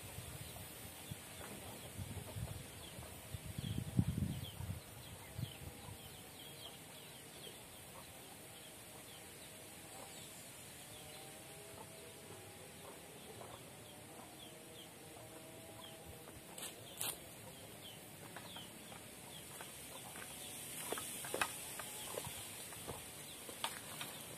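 Rural hillside ambience: chickens clucking and small birds chirping over a steady high hiss, with a low rumble in the first few seconds and a few sharp clicks near the end.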